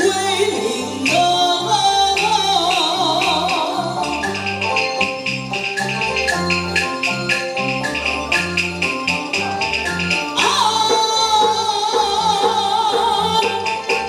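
Taiwanese opera (gezaixi) ensemble music: a wavering sung line with vibrato in the first few seconds, then an instrumental passage with a steady percussion beat under melodic instruments, and a strong held high note entering about ten seconds in.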